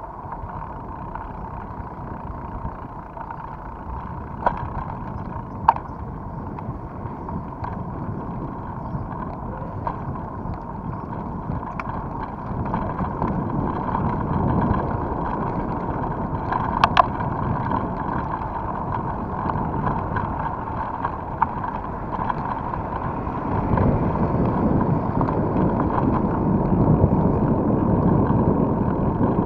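Wind noise on the microphone and tyre hiss on wet pavement from a mountain bike riding along, with a few sharp clicks, getting louder for the last several seconds.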